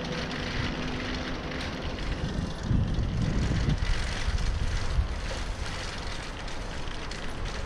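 Wind rumbling on a GoPro's microphone while riding a bicycle over brick paving, with road rattle mixed in. The rumble swells for about a second near the middle.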